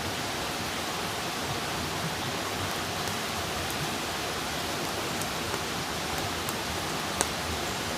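Wood fire burning: a steady hiss with scattered sharp crackles and pops, one louder pop near the end.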